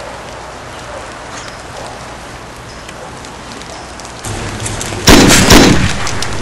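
Steady hiss of background noise, louder from about four seconds in, then a loud blast about five seconds in that dies away within a second.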